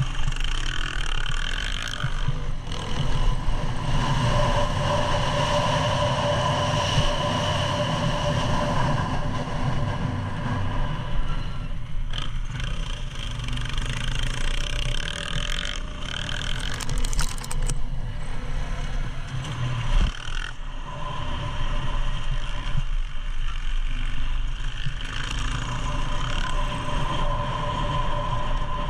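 Husqvarna motocross bike's engine running continuously under changing throttle while riding a dirt track, heard up close from the rider's seat, with a second dirt bike just ahead.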